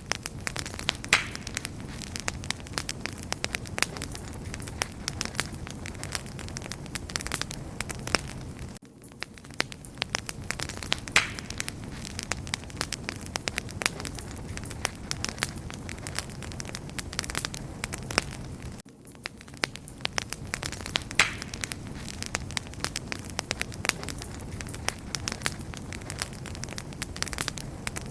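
Wood fire crackling and popping steadily, with sharp snaps over a low rush of flames. The same stretch of crackles repeats about every ten seconds, as a loop.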